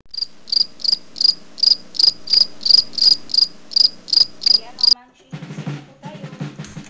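Countdown intro sound effect: a quick string of about fourteen short high-pitched beeps, nearly three a second, over a faint low hum. The beeps stop about five seconds in, and music with low drum hits starts.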